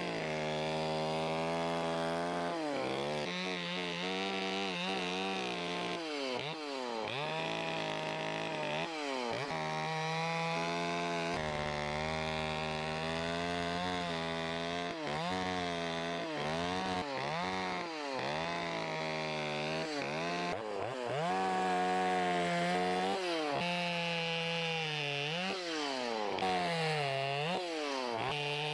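Carving chainsaw cutting into wood, its engine note repeatedly dropping and rising again as the throttle is eased off and squeezed between cuts.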